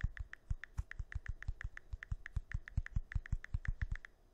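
Keyboard typing sound effect: rapid, even keystroke clicks at about eight a second, with a brief pause near the end.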